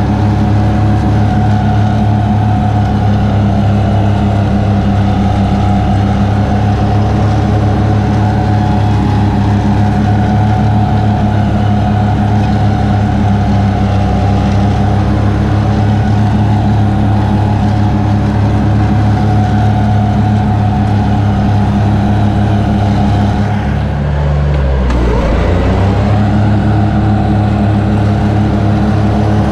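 A New Holland front-deck riding mower's engine runs steadily under mowing load. About three-quarters of the way through, its note sags briefly and then climbs back to speed.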